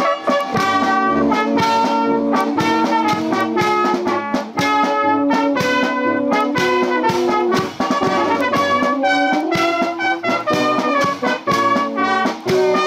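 Brass band music, with trumpets and trombones playing a tune over a steady beat.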